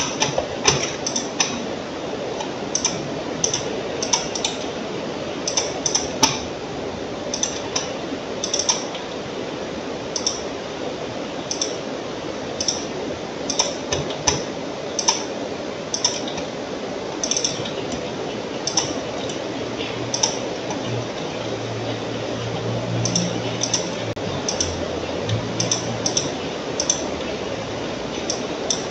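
Computer mouse clicking at irregular intervals, often in quick pairs, over a steady hiss. A low hum comes and goes in the second half.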